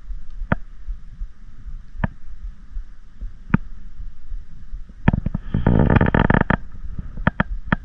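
Spinning reel being worked while a fish is on. Scattered sharp clicks and knocks of the reel and hands, with a dense whirring rattle from about five to six and a half seconds in, over a low rumble on the microphone.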